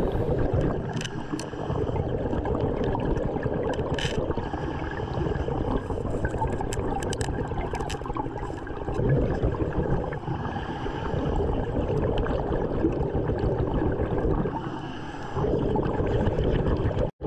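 Underwater bubbling and gurgling of a diver's breathing, with a few small clicks and knocks.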